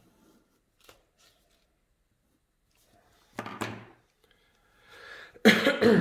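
A person's short wordless vocal sounds close to the microphone: a brief murmur about three seconds in, then a breath and a louder voiced burst near the end. A faint click comes about a second in.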